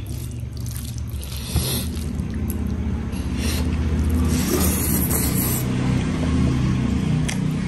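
Close-miked eating sounds: chewing a mouthful of curry and rice, with small wet clicks and smacks and a short scraping sound about halfway through.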